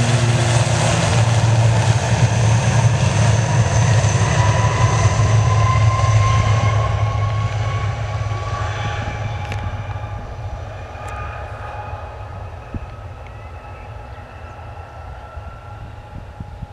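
An ATR 72-500's two PW127 turboprop engines at takeoff power: a deep propeller drone under a roar with a whine that slowly rises in pitch. It fades steadily as the aircraft runs down the runway, lifts off and climbs away, and the deep drone drops out about halfway through.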